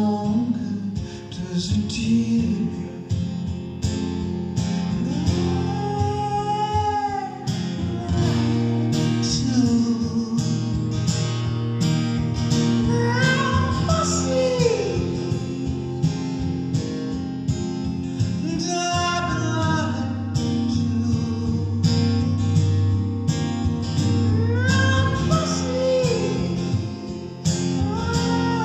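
A man singing while playing an acoustic guitar, live: sung lines with long held, bending notes over continuous guitar.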